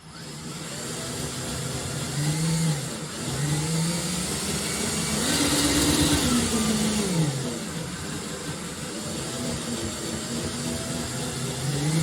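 Shake table motor starting up and running. Its pitch climbs to a peak about halfway and falls back as the shaking speed changes, driving a K'NEX model building through its twisting modes.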